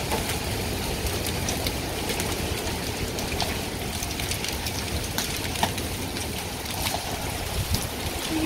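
A hailstorm: a steady rush of falling rain and hail, with scattered sharp knocks of large hailstones striking.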